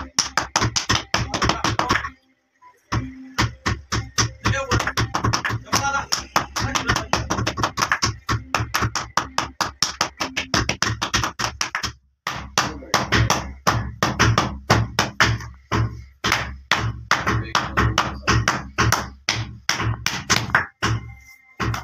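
Glass bottle struck rapidly against a leather sandal sole lying on a stone block, giving a fast run of short taps, several a second. The taps break off briefly about two seconds in and again near the middle.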